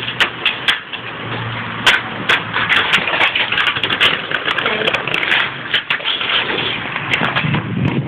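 Stunt scooter's small wheels rolling over brick block paving: a continuous rough rattle with many sharp clicks and knocks as the wheels cross the joints.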